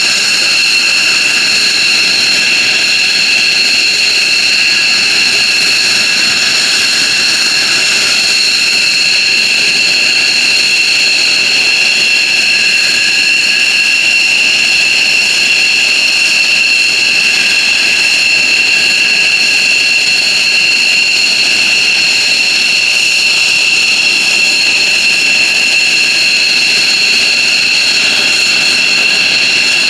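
F-15J Eagle's twin F100 turbofan engines running steadily on the ground after start-up: a loud, even, high-pitched whine over rushing noise.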